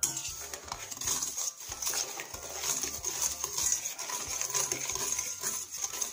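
Wire balloon whisk beating eggs and sugar in a stainless steel bowl: a rapid, continuous rattling and scraping of the wires against the metal.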